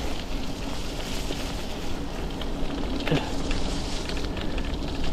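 Mountain bike tyres rolling over a wet, muddy gravel track with a steady crackle, over a low rumble of wind on the microphone. A sharp knock comes about three seconds in.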